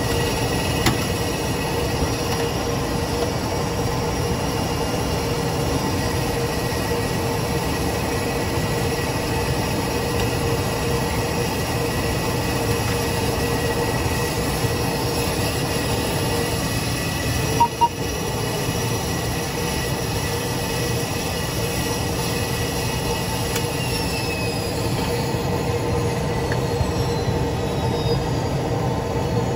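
ATR 72-500 turboprop running on the ground, heard from the cockpit as a steady whine over a noisy drone. Two quick short beeps sound about two-thirds of the way through, and near the end some of the high whining tones glide downward.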